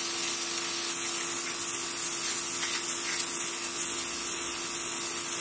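Raider RD-PHC02 1800 W electric pressure washer running steadily: the hiss of its water jet spraying onto paving tiles over the constant hum of its motor and pump.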